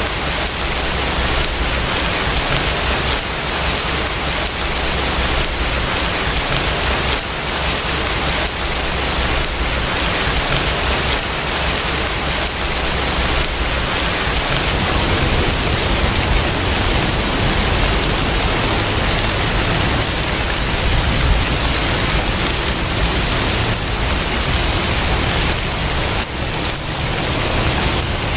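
Steady rain falling, a dense even hiss, with a low rumble underneath that grows slightly about halfway through.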